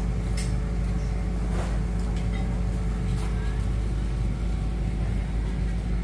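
A steady low mechanical hum and rumble, with a few faint clicks.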